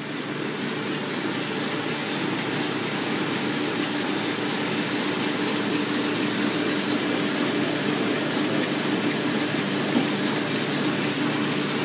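Offset printing press running steadily: an even mechanical noise with a constant high whine over a low hum.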